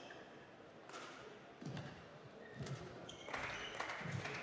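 Sports-shoe squeaks and dull footfall thuds on a badminton court as players move between points, a few thuds about a second apart with short high squeaks around the middle.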